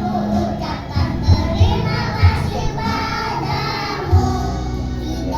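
Young children's choir singing together over accompanying music with low bass hits.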